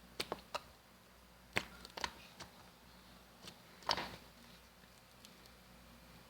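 Slime being squeezed and poked in the hands, giving scattered short sharp clicks and pops, most of them in the first four seconds.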